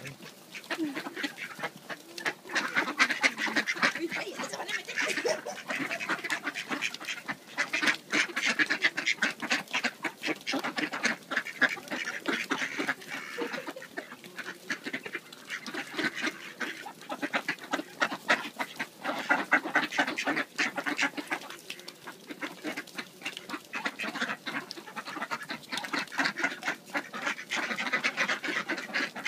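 A flock of mallard ducks quacking and chattering over food, many calls overlapping with no pause.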